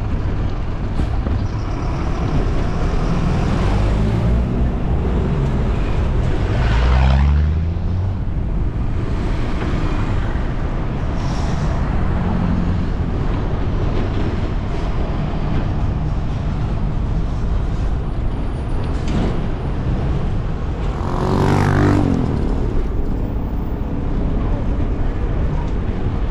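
Street traffic over a steady low rumble. A few seconds in, a vehicle's engine rises in pitch as it accelerates past. It passes again, louder and closer, about three quarters of the way through.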